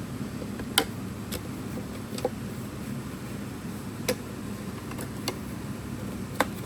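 Sharp clicks and light taps at irregular intervals, about seven of them, as a plastic computer speaker and its screws are handled during disassembly, over a steady low hum.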